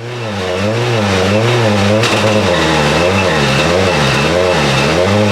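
Ford Focus WRC rally car's turbocharged 2.0-litre four-cylinder running at a lumpy idle, its revs rising and falling about twice a second. There is one sharp crack about two seconds in.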